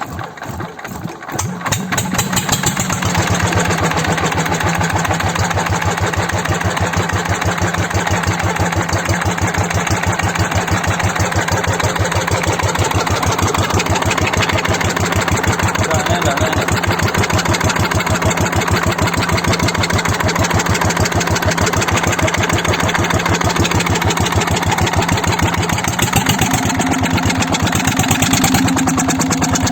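Freshly overhauled Dongfeng S1115 single-cylinder diesel engine catching, its knocks quickening over the first two seconds, then running steadily with an even firing beat. The pitch rises a little near the end.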